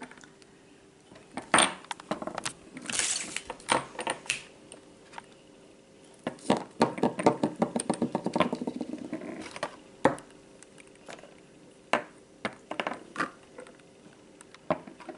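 Hard plastic Mighty Beanz toys being handled and set down on a wooden tabletop: scattered sharp clicks and knocks, with a run of fast rattling clicks about halfway through.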